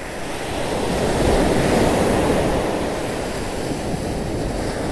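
Ocean surf breaking and washing up the beach in a steady rush, swelling about a second in and easing off somewhat later.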